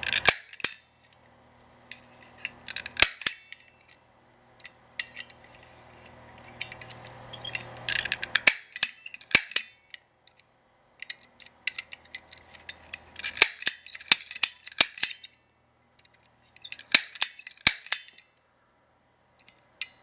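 KLOM manual lock pick gun snapping in a brass deadbolt cylinder, fired in five bursts of sharp metallic clicks with pauses between.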